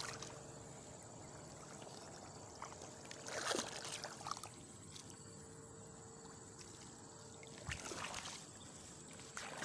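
Faint footsteps and scuffs on a dirt bank, two louder rustles about a third of the way in and near the end, over a low steady hiss.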